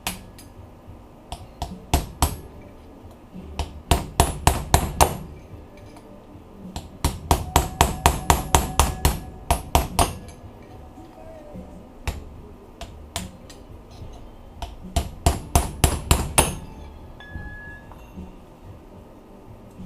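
Hammer striking metal in several quick runs of sharp taps with pauses between, knocking a bushing out of a 4L80E transmission's overdrive assembly.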